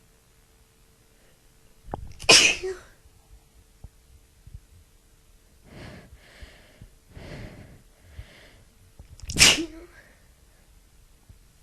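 A woman with a bad cold sneezing twice, two loud sudden sneezes about seven seconds apart. Between them come a few softer, breathy in-and-out breaths.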